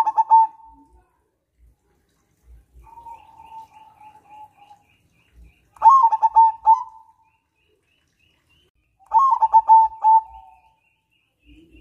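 Zebra dove (perkutut) cooing: a rapid string of staccato coos three times, at the start, about six seconds in and about nine seconds in, with a softer drawn-out coo about three seconds in. Faint high chirps from another bird repeat in the background.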